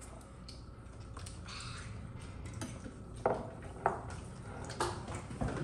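A handful of short light knocks and clicks, about five in the last three seconds, over a low steady hum.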